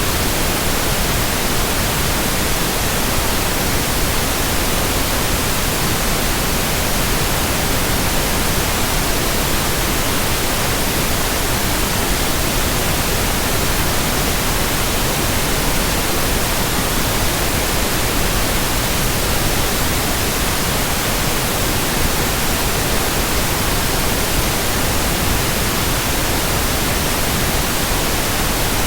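Steady white noise: an even, unchanging hiss that spreads from deep to high pitches, with no swells, beats or breaks.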